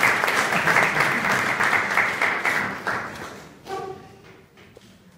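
Audience applauding, the clapping dense at first, then thinning and dying away about three seconds in.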